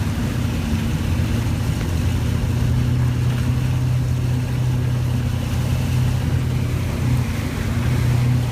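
A vehicle engine running with a steady low drone, under an even hiss, in deep flood water.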